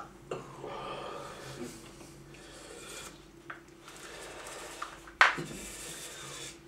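Quiet handling of plastic sundae cups and spoons on a wooden table, a spoon scraping in a cup, with one sharp knock about five seconds in.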